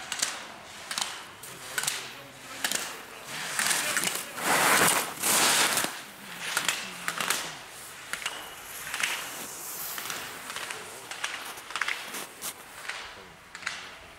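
Slalom skis carving turns on hard, icy snow: rhythmic scraping hisses about once a second, one with each turn through the gates, with a longer, louder rush of snow about five seconds in.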